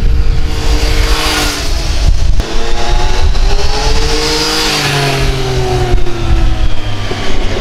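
Yamaha XSR900 motorcycle's three-cylinder engine revving hard on a ride-by. The exhaust note climbs, breaks briefly about two and a half seconds in, climbs again and then falls away.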